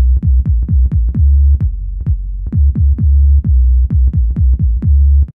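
Analog synthesizer's step sequencer playing a very deep bass pattern on its 'Ultra Low' preset: low notes retriggered in a quick, uneven rhythm, each starting with a sharp click. It cuts off suddenly near the end.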